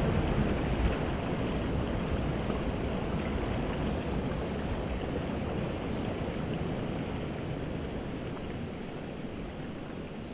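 Steady rushing noise of wind and surf, fading slowly.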